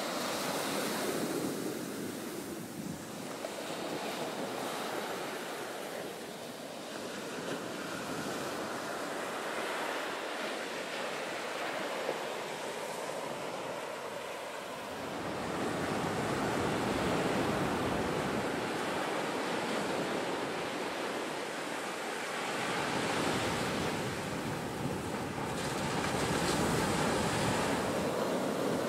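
Ocean surf breaking and washing up on the beach, a steady rushing wash. Wind buffets the microphone in low rumbling gusts, strongest in the second half.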